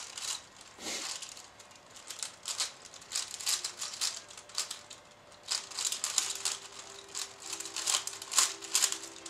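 A plastic 5x5 puzzle cube being turned fast during a speedsolve: a dense, irregular run of clicks and rattles as its layers snap round. Faint music comes in about halfway through.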